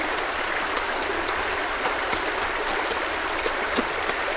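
Steady rushing noise of flowing water, with faint scattered clicks.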